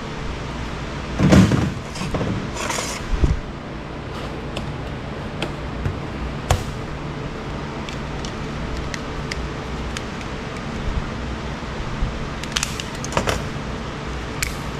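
Handling noise of an electronic device being taken apart by hand on a metal workbench: a thump about a second in and another near three seconds, then scattered small clicks and taps of tools and plastic parts, over a steady low hum.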